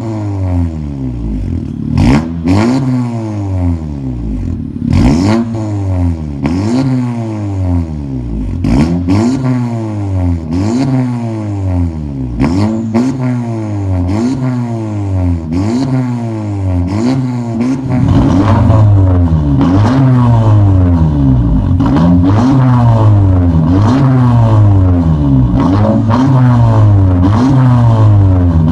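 Honda Civic RS Turbo's 1.5-litre turbocharged four-cylinder free-revved over and over through an aftermarket quad-tip exhaust, the pitch climbing and dropping back about every second and a half, with a few sharp cracks in the first half. About two-thirds of the way through the revving turns louder and quicker.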